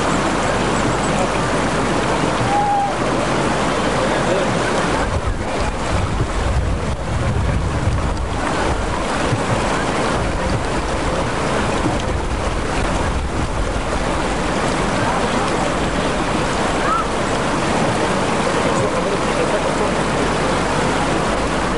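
Fast mountain river rushing over rocks: a steady, loud water noise. About five seconds in, a low rumble comes in for a few seconds.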